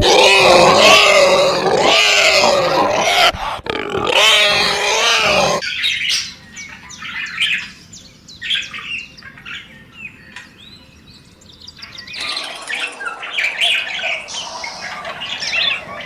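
Animal calls with wavering pitch, several overlapping, for about the first five and a half seconds. Then short, scattered bird-like chirps and calls, quieter at first and busier again near the end.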